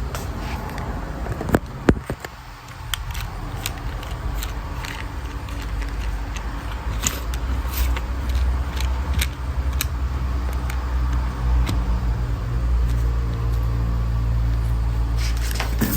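Honda Civic's B-series four-cylinder engine idling with a steady low hum, slowly growing louder after the first couple of seconds. A few sharp clicks sound in the first two seconds, with lighter ticks scattered through.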